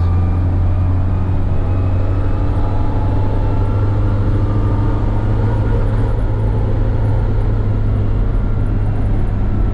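1972 Land Rover Series III's petrol engine and drivetrain running steadily while driving, heard from inside the cab as a deep, even hum with road noise.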